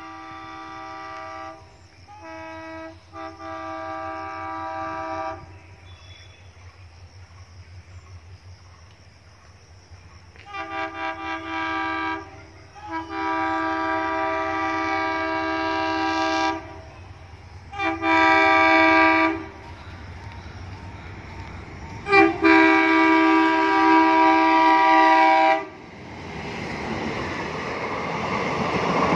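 Indian Railways locomotive horn sounding about seven times as the train approaches, some short toots and some long blasts held for several seconds, over a steady low rumble. Near the end the rising rush and rumble of the train passing close by takes over.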